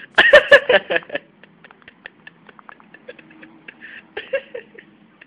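A young girl's high-pitched voice in a loud, quickly broken burst lasting about a second. After that come faint scattered clicks and a few short, quieter vocal sounds.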